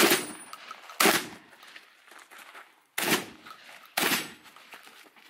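Four shotgun shots, each followed by a short echo: two about a second apart, a pause of about two seconds, then two more about a second apart.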